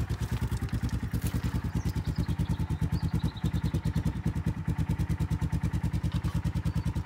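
Quad bike engine idling with a steady, rapid low throb.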